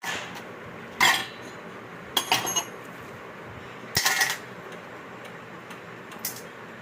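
Metal tools and parts clinking and rattling as they are handled: a handful of sharp separate clinks a second or two apart, the busiest about two seconds in.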